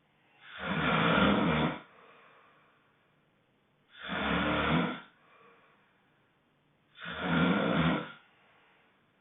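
Loud, honking snoring: three long snores about three seconds apart, each followed by a softer, fainter breath.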